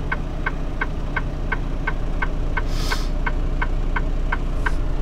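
Box truck engine idling with a steady low rumble, over a regular light ticking of about three ticks a second. A short hiss comes in about three seconds in.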